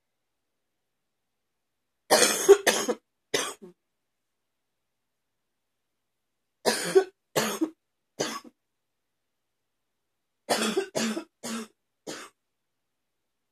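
A woman's wet cough in three bouts a few seconds apart, each of three or four quick coughs.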